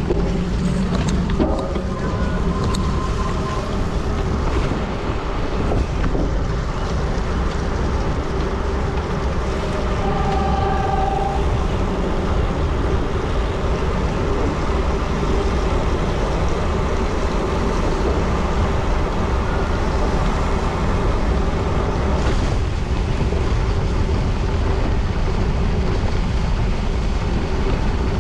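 Steady wind rush and rolling noise of a gravel bicycle being ridden at race pace, heard on the rider's camera microphone.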